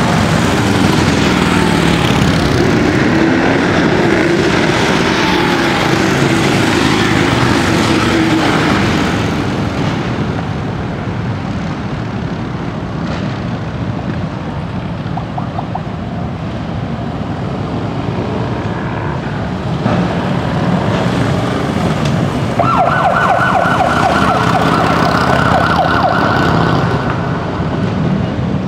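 Police motorcycle engines running, loudest in the first several seconds as one rides close past, then a steadier rumble as the pack approaches. About 23 seconds in, a siren sounds with a fast pulsing yelp for about four seconds.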